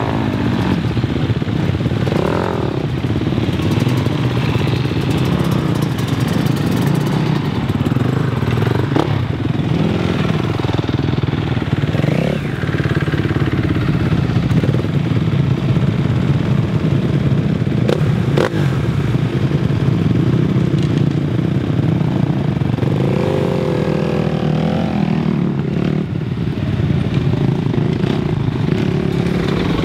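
Several motocross bikes running together, idling and revving as they pull away one after another, the engine pitch rising and falling with each blip of the throttle. A few sharp clacks cut through now and then.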